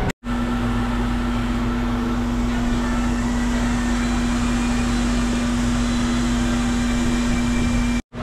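Electric fan running, a steady mechanical hum with a constant low tone.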